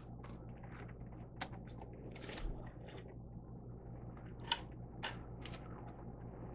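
Rustling and handling of a stitched canvas-and-clear-vinyl panel at a sewing machine, with a few scattered small clicks and taps, over a steady low hum.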